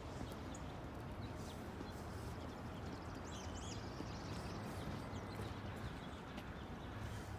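Several faint, short bird chirps and whistles, a cluster of calls about halfway through, over a steady low rumble of city background noise.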